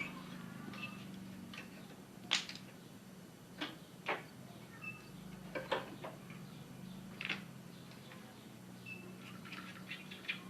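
Scattered sharp clicks and light knocks of hard parts and tools being handled on a workbench, about five louder ones spread irregularly, over a faint steady low hum.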